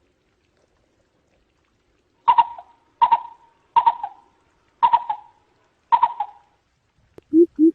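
Greater coucal lure call: after a pause come five short, sharp calls about a second apart. Near the end the deep, rapid hooting starts up again.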